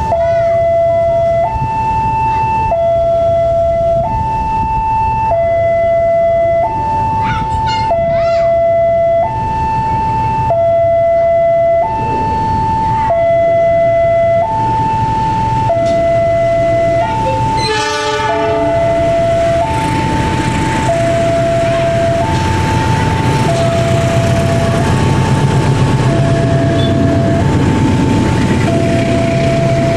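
Level-crossing warning alarm alternating between a high and a low electronic tone, each held about two-thirds of a second, over the low running of an approaching diesel-electric locomotive. A short train horn blast comes about 18 seconds in, and the rolling noise of the passenger carriages on the rails builds over the last third.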